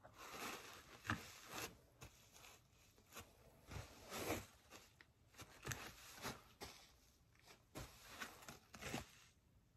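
Faint scattered scuffing and rustling with soft clicks as foam clogs are handled on the feet and their heel straps flipped back into sport mode.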